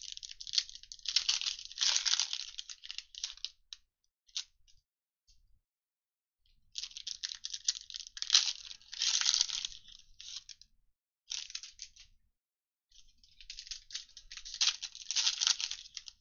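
Trading-card pack wrappers being torn open and crinkled by hand, in four crackly bursts with short pauses between them.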